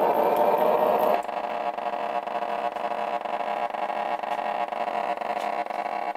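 G scale model railcar running along the track: a steady mechanical whir from its motor and wheels, dropping in level about a second in.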